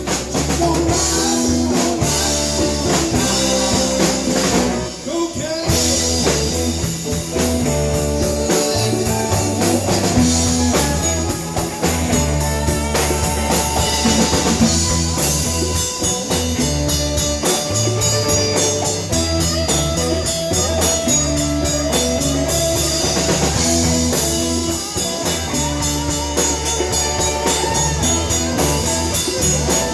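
Live band playing a blues-rock jam: electric guitar over a drum kit and a walking low bass line.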